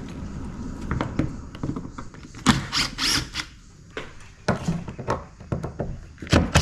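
Scattered knocks, taps and clicks of hand tools and a cordless impact driver being handled against a timber door and its frame, as the driver is set to the hinge screws. The knocks come in clusters about midway and again a little later.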